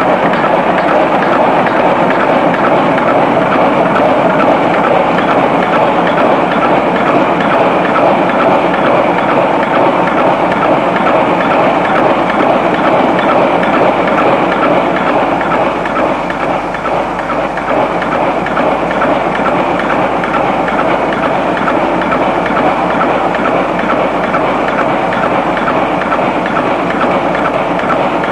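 Old steam-era workshop machinery running, a loud and steady mechanical noise that hardly changes.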